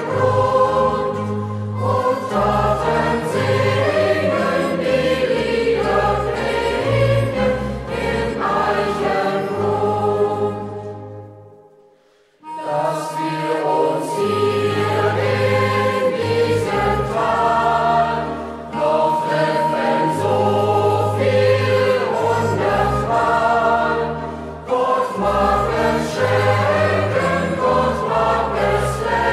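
Youth choir singing a German folk song in several voices; the song fades out about eleven seconds in and, after a brief gap, the group starts singing again.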